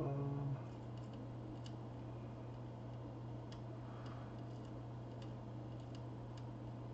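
Faint, scattered light ticks from small soldering tools on a circuit board, over a steady low electrical hum. A brief louder buzzing tone sounds right at the start.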